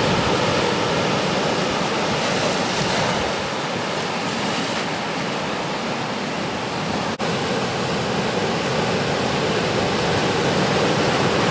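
Ocean surf: the steady wash of breaking waves, with a very brief dropout about seven seconds in.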